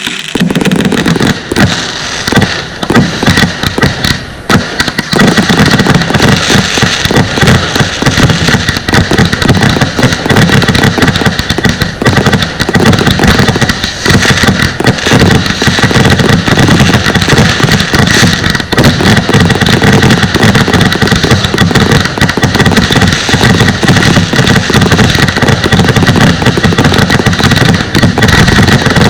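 Consumer fireworks going off in a dense barrage of rapid bangs and crackle. After about five seconds it becomes continuous and very loud.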